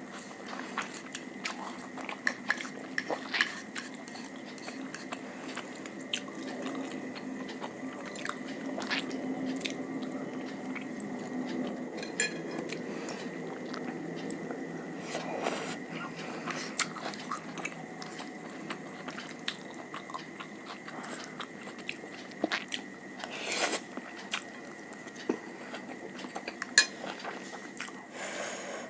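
A person eating close to the microphone: biting and chewing food, with many short sharp crunches and mouth clicks at irregular intervals.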